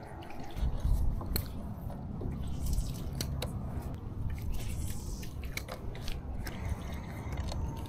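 Wind buffeting the microphone as a steady low rumble, with scattered small clicks and knocks from handling a spinning rod and reel while a lure is retrieved.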